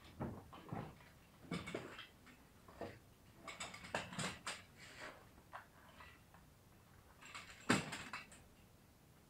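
Irregular clicks, taps and rustles of small parts or tools being handled, with one sharper knock about three-quarters of the way through.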